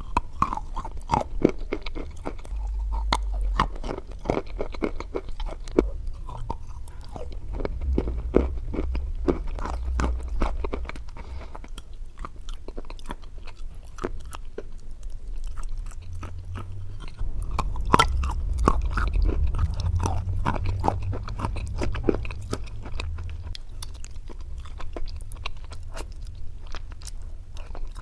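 A person biting and chewing slate pencils close to the microphone: a dense run of sharp, brittle crunches and crackles throughout, over a low rumble.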